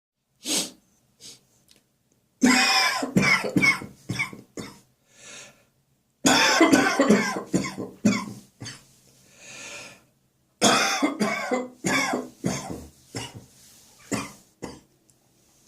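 A man's catarrh cough: three fits of repeated coughing, starting about two, six and ten seconds in, each tailing off, with short pauses between.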